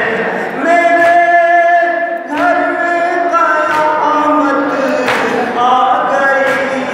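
A group of men chanting a noha (Shia mourning lament) in unison, holding long drawn-out notes that change pitch every second or two. A few sharp chest-beating slaps of matam cut through the chant.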